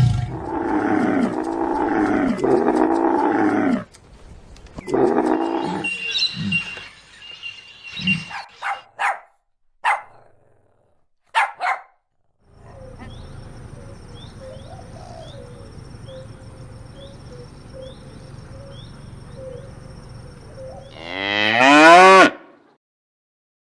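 A run of short animal calls from different clips, ending with a cow mooing loudly, one long call that rises and then falls in pitch near the end.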